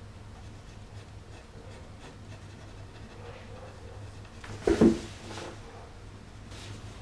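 Light scratching of a pencil drawing on paper over a steady low hum, with a short, much louder sound about two-thirds of the way through.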